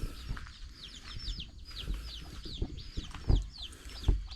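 Chickens at the coop calling in a rapid run of short, high, falling peeps. A couple of low thumps come about three and four seconds in.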